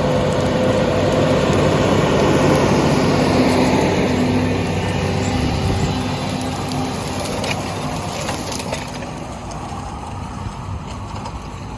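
Heavy farm machinery engine running steadily, fading as the machine moves away.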